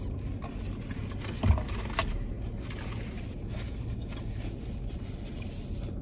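Steady low rumble of a car's engine idling, heard from inside the cabin, with a soft thump about a second and a half in and a sharp click half a second later.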